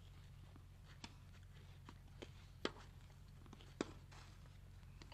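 Faint, sharp knocks of a tennis ball being struck and bouncing during a rally, a few irregularly spaced, over a steady low hum.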